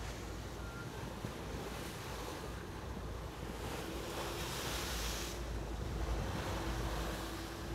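Wind buffeting the microphone over the wash of the sea around a moving sportfishing boat's stern, with a louder splash of spray breaking over the transom about four seconds in. A faint steady hum runs underneath from about then on.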